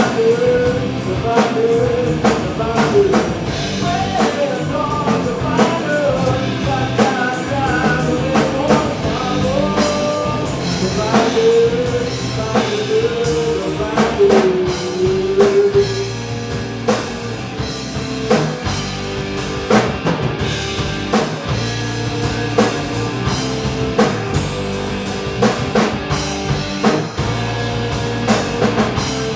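Live rock band playing in a rehearsal room: drum kit, electric guitar and keyboard, with steady drum hits throughout. A sung melody line runs over roughly the first half, then the instruments carry on alone.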